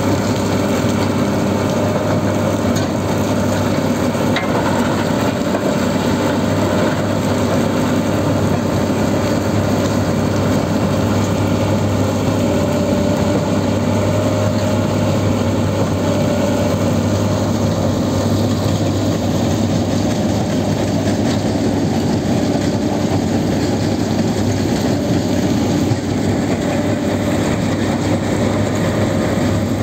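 Terex tracked mobile jaw crusher running steadily while crushing concrete and building rubble: a loud, continuous engine hum under a dense grinding rattle of broken material going through the crusher and off the conveyor.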